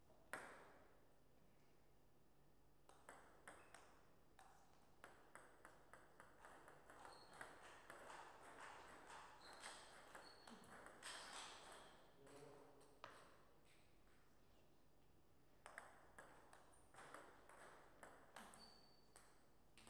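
Table tennis ball clicking off the players' bats and bouncing on the table in two faint rallies. The first runs for about ten seconds, and the second starts near the end.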